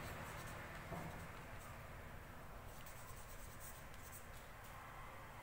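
Marker pen writing on a whiteboard: faint, irregular strokes of the felt tip against the board, over a low steady room hum.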